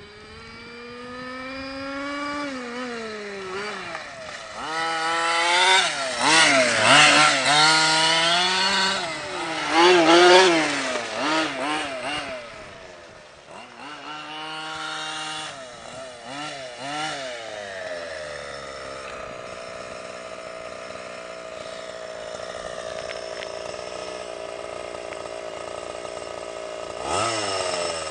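Two-stroke petrol engine of a Losi 5ive-T 1/5-scale RC truck, revving up and down as it is driven, loudest for a few seconds as it passes close. It then settles into a steady run at a lower level, with one short rev near the end.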